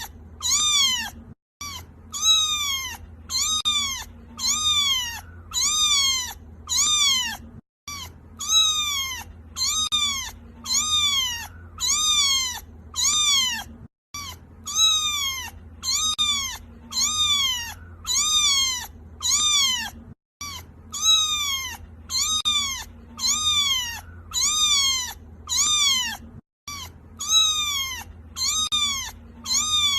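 Kitten crying: short, high meows repeated over and over, about one and a third a second, each rising then falling in pitch. Every six seconds or so the calls break off for a brief silent gap, like the seam of a loop.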